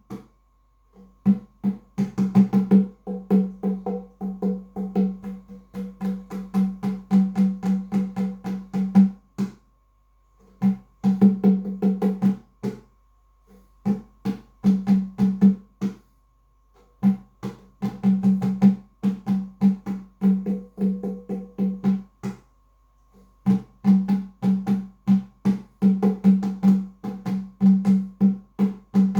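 Nyahbinghi music: quick, even drum-like strokes over a sustained low ringing tone, breaking off into short silences of about a second several times.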